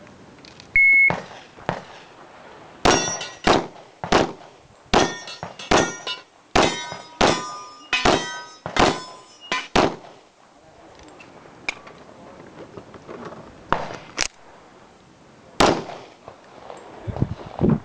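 Electronic shot-timer beep, then a rapid string of .45 ACP shots from a Smith & Wesson M&P45 pistol, with steel targets ringing as they are hit. After about ten seconds the shots come more slowly, a few at a time.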